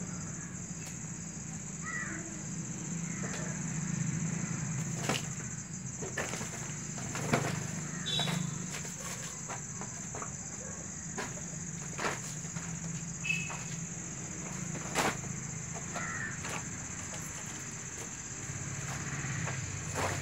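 Steady high-pitched chirring of night insects, likely crickets, over a low hum, with scattered sharp crinkles and clicks of a woven plastic sack as a cat pounces and scrabbles on it.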